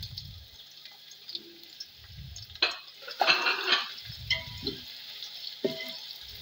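Sliced onions sizzling and crackling in hot cooking oil in a metal pot as they are stirred with a spatula, with scraping clicks and a few dull knocks; the sizzle grows louder about three seconds in.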